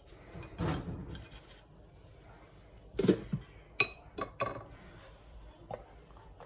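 Kitchen utensils and dishware scraping and clinking, with a sharp ringing clink just under four seconds in and a few lighter clicks after it.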